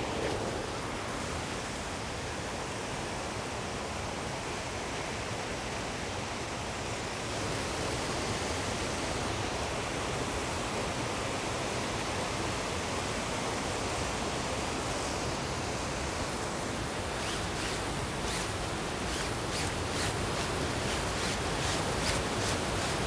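Steady rushing of a mountain stream over rocks. Over the last third, short crisp clicks and rustles sound over it.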